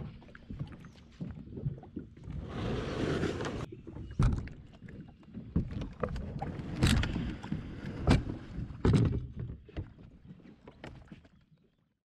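Kayak being pushed down a concrete boat ramp, with the hull scraping and scattered sharp knocks and bumps from the boat and its gear, fading out near the end.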